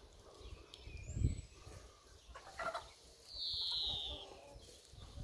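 Free-range hens calling as they forage: scattered short clucks and one high, drawn-out squawk of about a second just past the middle. A low thump about a second in.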